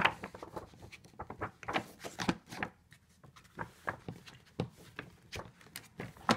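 Paper pages being turned quickly in a ring binder: a run of short rustles and flaps, one page after another, with a sharp slap at the start and another near the end.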